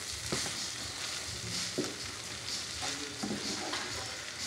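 Wooden spoon slowly stirring ground turkey and rice in a large nonstick skillet, over a steady soft sizzle of the mix frying on low heat. The spoon gives a light click against the pan twice.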